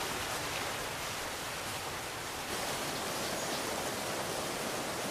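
Steady rushing noise with no distinct events, a little louder from about two and a half seconds in.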